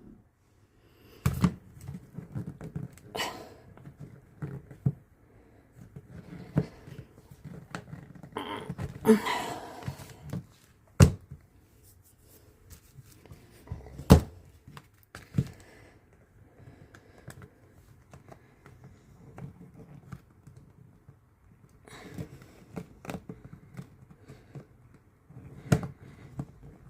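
Hard cast epoxy-resin puzzle-box pieces being handled and pushed against each other: scattered clicks and knocks with light scraping and rubbing as they fail to fit together. There are two sharper knocks in the middle.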